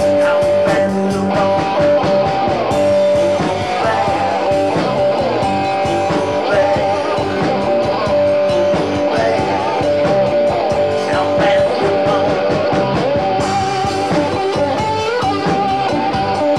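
Live rock band playing: an electric guitar leads with held, bending notes over drums and bass guitar.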